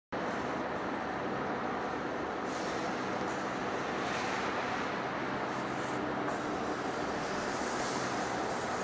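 Heavy-duty lathe running, a steady machine hum under an even, continuous noise.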